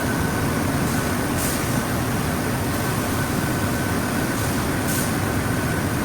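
Thick-sheet vacuum forming machine running: a steady, even mechanical noise with a thin constant whine, and two brief high hisses, about a second and a half in and near five seconds.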